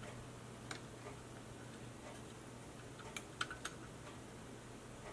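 A few faint, sharp clicks of small parts of an LED light strip being handled and fitted: one a little under a second in, then three close together about three seconds in, over a steady low hum.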